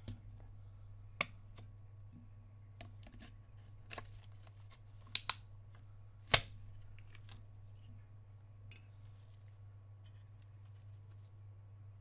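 Scattered sharp clicks and taps of a plastic pry card against an iPhone 6S's aluminium back housing, made while prying at a torn battery adhesive strip. There is a quick double click about five seconds in and the loudest click about a second after it, over a steady low hum.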